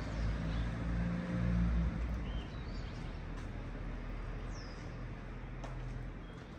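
Low engine hum of a vehicle, loudest in the first two seconds and then easing off, with a few short high bird chirps over it.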